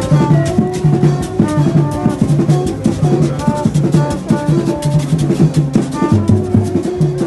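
Music with drums and percussion keeping a steady beat over a repeating low bass pattern.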